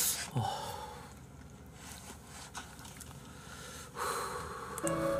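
A man sniffing and breathing hard through the nose, with a short falling vocal sound about half a second in and another loud sniff or breath about four seconds in. Soft background music starts near the end.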